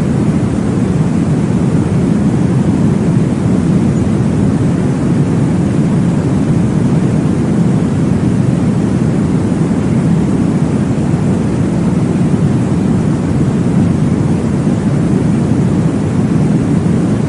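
Steady, deep, whooshing noise from a baby sleep-aid track, with most of its weight in the low end and no breaks or changes.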